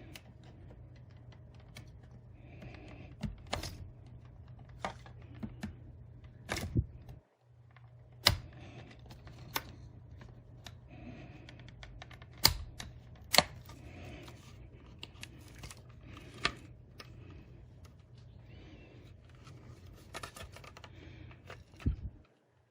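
Irregular sharp clicks and snaps of a plastic drive enclosure's case and clips as it is pried and worked open by hand, with a low steady hum underneath.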